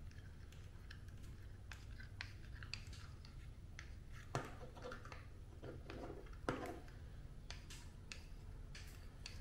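Faint clicks and rustling of hands handling a black 3D-printed plastic magazine pouch, with two sharper clicks about four and a half and six and a half seconds in.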